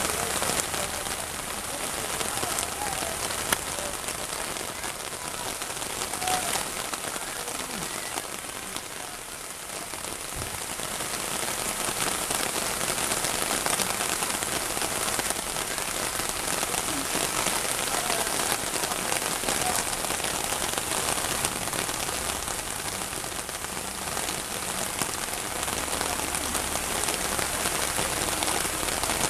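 Torrential downpour pelting a flooded street and pavement: a dense, steady hiss of heavy rain.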